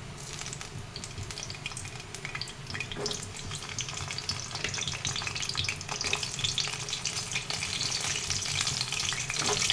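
Whole peeled pointed gourds (potol) frying in hot oil in a kadai: a dense crackling sizzle that grows louder as it goes on.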